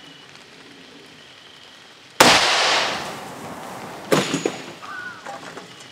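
Shotgun firing a homemade shell loaded with a giant nail: one loud blast about two seconds in with a rushing tail, then a second sharp bang about two seconds later.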